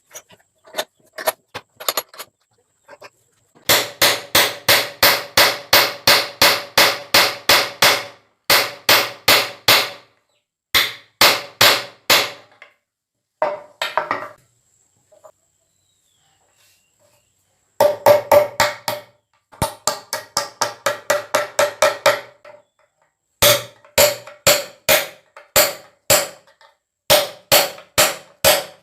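Hammer striking nails into wood in runs of quick, even blows, about four to five a second, with short pauses between the runs.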